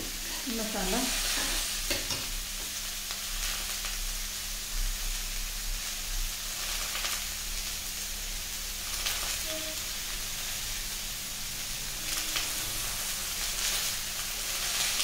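Masala paste and potato-cauliflower frying in hot mustard oil in two kadhais on a gas stove, a steady sizzling hiss. A spatula scrapes through the masala in the first couple of seconds, and there are a few small spits and pops later.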